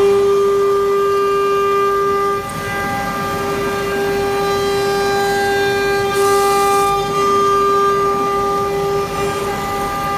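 CNC router spindle running with a steady whine while it cuts aluminium composite panel, with a short hiss about six seconds in.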